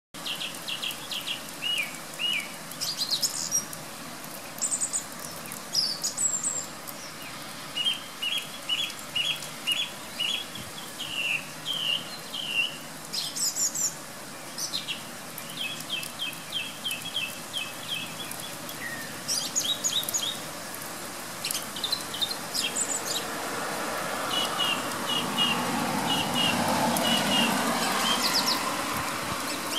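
Song thrush singing: short phrases of loud, clear notes, many of them repeated several times in a row, over the steady hiss of heavy rain. A louder rushing noise swells up over the last several seconds.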